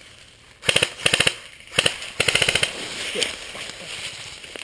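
Airsoft rifle firing four short full-auto bursts, each a rapid rattle of shots, within the first three seconds.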